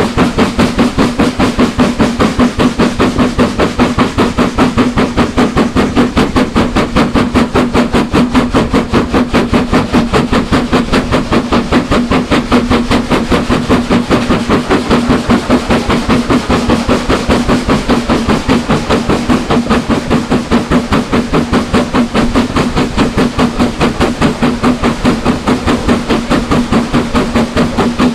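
Steam locomotive working steadily under load, its exhaust beats coming in a fast, even rhythm over a steady low hum.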